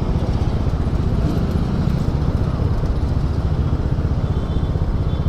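Kymco Super 8 125 scooter's single-cylinder four-stroke engine running steadily, with a rapid even pulse.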